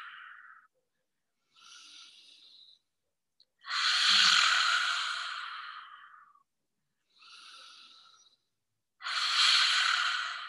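Lion's breath: a woman's forceful open-mouthed exhales, a breathy 'haaa' without voice, alternating with quieter inhales through the nose. One exhale trails off at the start, then two more come about five seconds apart, each starting loud and fading out over a couple of seconds.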